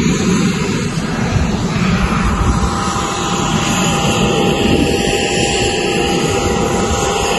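Aircraft turbine engine running steadily: a loud, continuous rumble and rush, joined about two seconds in by a thin, steady whine.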